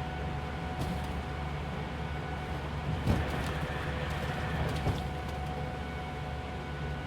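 Interior of a coach bus driving on the highway: a steady low road-and-engine rumble with a faint steady whine. Two sharp knocks, about three and five seconds in, stand out over a few lighter rattles.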